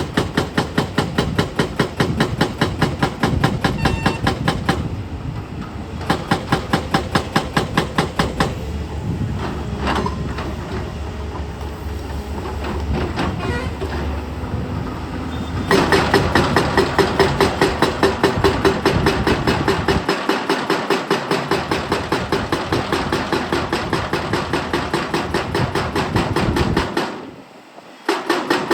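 Hydraulic breaker on an excavator hammering in a fast, even run of blows. The blows soften for a while in the middle and stop briefly near the end.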